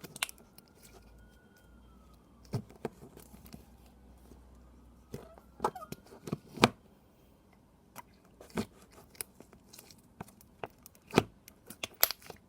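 Slime being squished and poked by hand, giving irregular sloshy squelches and sharp bubble pops, a few of them much louder.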